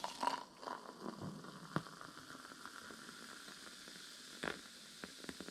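Faint steady hiss with a few soft clicks and taps.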